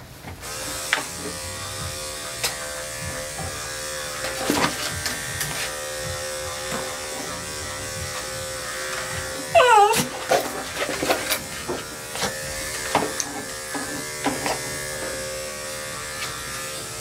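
Electric dog-grooming clippers with a #10 blade running steadily through a matted poodle coat, with scattered clicks and knocks. About ten seconds in, a small dog gives one short, high-pitched yelp.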